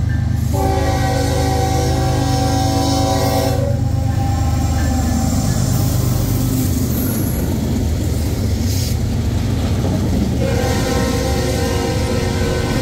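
Amtrak train's horn sounding a chord of several tones: one blast of about three seconds, then another starting near the end, over the train's steady low rumble.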